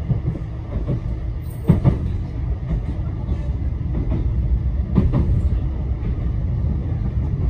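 Tram running on its rails with a steady low rumble, with sharp knocks about two seconds in and again about five seconds in.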